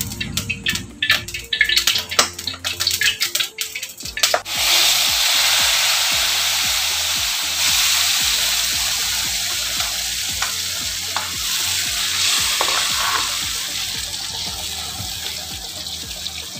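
A spice paste hits hot oil in a wok about four seconds in, after a run of light taps, and sizzles loudly. It then keeps frying with a steady sizzle that slowly fades as it is stirred with a spatula.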